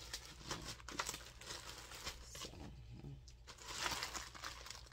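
Clear plastic poly bag crinkling and rustling as it is handled, with a louder stretch of crinkling about four seconds in.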